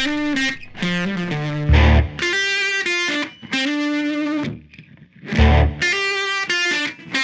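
Background rock music: distorted electric guitar chords in rhythmic bursts over heavy low beats, dropping out briefly about five seconds in.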